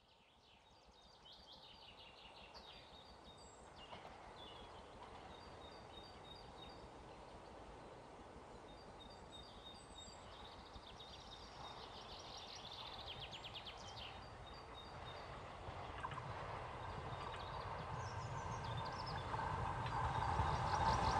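Songbirds chirping and singing while an approaching train's rumble grows steadily louder through the second half.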